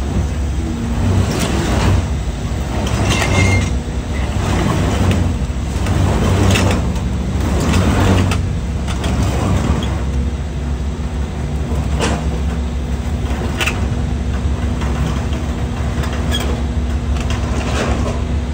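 Heavy rotator wrecker running under load as its winch pulls an overturned semi tractor-trailer, with a steady deep hum. Noisy surges come every second or two in the first half, and a steady tone joins about ten seconds in.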